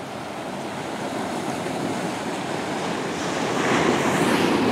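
Ocean surf washing onto the shore, with wind buffeting the microphone; the rushing grows louder toward the end.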